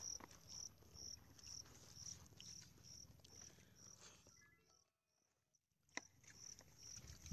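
Faint insect chirping: short, high-pitched chirps repeat evenly about two or three times a second over a low rumble, dropping out for about a second and a half just after the middle.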